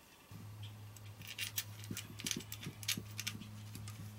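Small rock tumbler electric motor, its shaft bushings freshly cleaned and oiled, starting about a third of a second in and running with a steady low electrical hum. Light clicks and taps of the motor being handled come over the hum.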